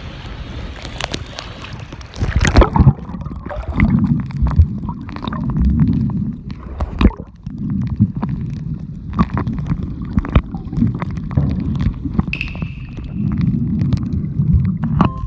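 Seawater heard through a camera used while snorkelling: a hissing wash, then a loud splash about two and a half seconds in. After it comes muffled, low gurgling and sloshing that swells and fades, with scattered sharp clicks and knocks.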